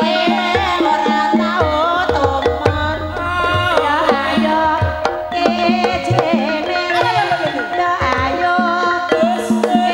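Gamelan music accompanying an ebeg trance dance: kendang hand drums beat a steady rhythm under sustained pitched instruments, with a wavering melody line gliding above.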